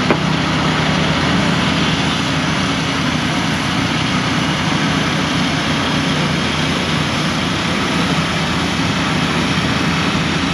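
Small gasoline engine on a Norwood Frontier OS-27 portable bandsaw mill running steadily with the saw not cutting, while the log is being set. A single short knock comes right at the start.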